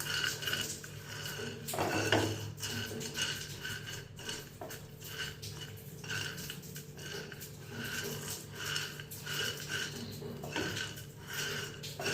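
A spoon repeatedly clinking against a cooking vessel, a few light ringing clinks a second, over a low steady hum.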